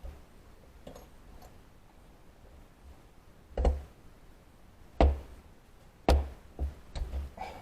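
A handful of sharp, irregular knocks, as of hard objects struck or set down during thread-repair work. The three loudest come about three and a half, five and six seconds in, followed by two lighter ones near the end.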